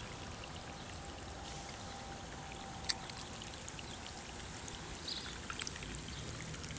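Stormwater runoff flowing steadily after a heavy rain, with one faint click about three seconds in.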